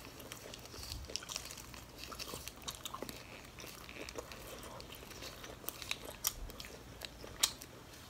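Close-miked chewing of a crispy fried egg roll: scattered small crunches and wet mouth clicks, a few sharper ones in the second half.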